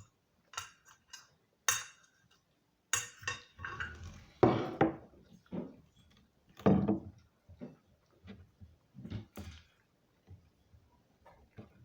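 Cutlery clinking and scraping against a plate during a meal, in a string of short clicks with louder scrapes about four and seven seconds in.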